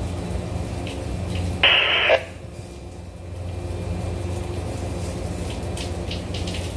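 Steady low hum of a ship's machinery on deck, with one short loud burst of hiss, like radio static, about two seconds in.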